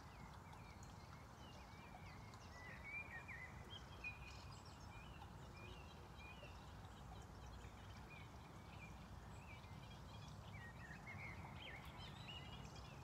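Faint birdsong, short wavering chirps in two bouts, a few seconds in and again near the end, over a quiet, steady low background rumble.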